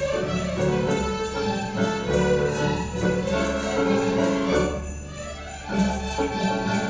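School symphony orchestra playing a lively tune over sleigh bells shaken in a steady beat, about four shakes a second. The music thins briefly about five seconds in, then returns in full.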